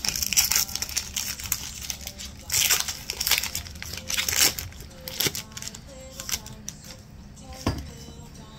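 A foil Pokémon booster pack wrapper crinkling in loud bursts as it is torn open through the first half. After that come quieter card handling with a couple of sharp clicks and faint background music.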